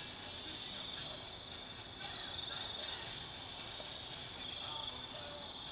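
Steady, high-pitched trilling chorus of crickets.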